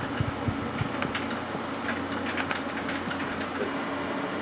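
Irregular clicks of computer keys and trackball buttons being pressed, some in quick little clusters, over a steady low hum.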